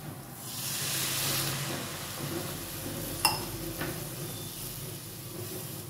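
Water poured into a hot wok of fried vermicelli and vegetables, sizzling loudly from about half a second in and then settling into a steady hiss. One sharp clink a little past halfway.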